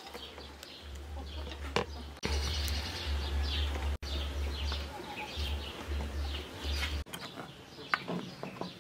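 Outdoor ambience: birds chirping over a steady low rumble, with a couple of short sharp clicks.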